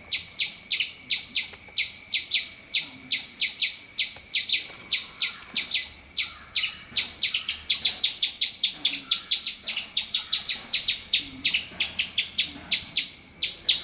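An animal giving a rapid series of short, high-pitched chirping calls, about four a second, over a steady high-pitched tone.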